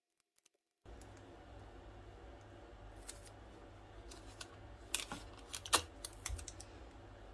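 Clear adhesive tape pulled off a dispenser, torn and pressed around a small plastic part: a scatter of short crackles and clicks over a faint low hum that starts about a second in.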